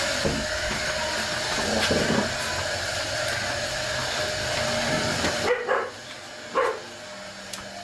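A steady whirring machine noise with a constant hum, like a fan or motor, stops abruptly about five and a half seconds in. A dog then barks twice, about a second apart.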